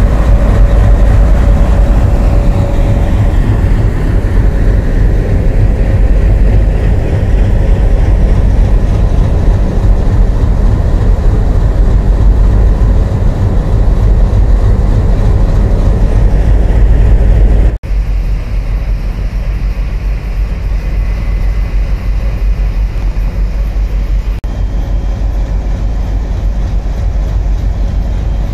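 Twin Alco WDM-3A diesel locomotives, each with a 16-cylinder ALCO 251 engine, idling at standstill with a loud, steady low rumble. The rumble breaks off abruptly about two-thirds of the way through, then carries on slightly quieter.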